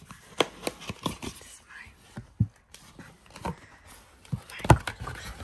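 Cardboard cake box being handled and opened by hand: a run of taps and knocks, the loudest one near the end.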